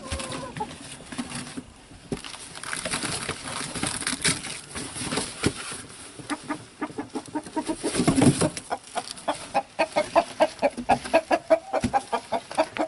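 Chickens clucking, building in the second half into a fast run of repeated clucks, about three to four a second. Rustling and handling noise comes first, with a single louder knock in the middle.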